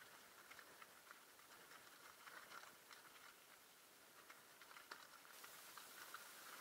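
Faint, muffled crunching and rattling of a mountain bike rolling over a loose stony track, with scattered sharp clicks from stones and the bike, and a hiss that gets louder about five seconds in.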